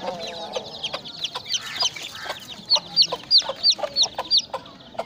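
Aseel chicks peeping: a run of loud, high, downward-slurred peeps, two or three a second, loudest in the second half, with chickens clucking lower underneath.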